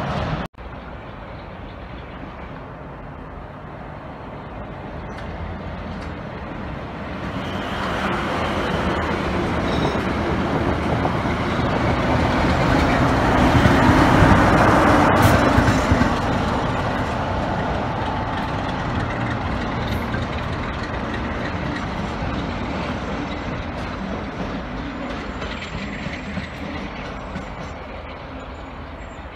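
Class 47 diesel locomotive 47815, with its Sulzer twelve-cylinder engine, passing close by. Its engine and wheel noise grow louder over several seconds, are loudest about halfway through, then slowly fade as it moves away.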